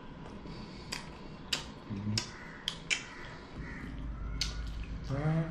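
Eating at a table: a fork and spoon clicking against a plate about six times, with chewing, and a short hummed voice sound near the end.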